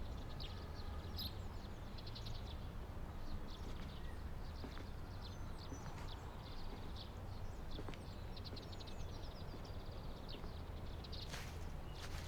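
Outdoor ambience: a steady low rumble with many short, high-pitched chirps and quick trills scattered throughout.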